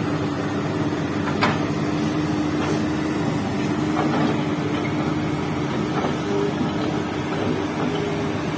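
Hydraulic excavator's diesel engine running steadily, with a few sharp clanks.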